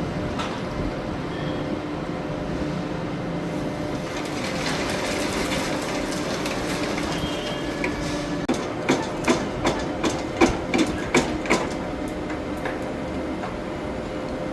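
A machine runs with a steady hum. Just past the middle comes a quick run of about eight sharp knocks, two or three a second, like hammer strikes.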